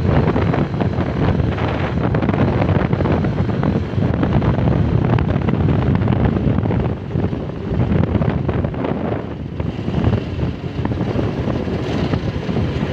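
Wind rushing and buffeting over the microphone of a motorcycle riding at speed, with the bike's running and road noise beneath.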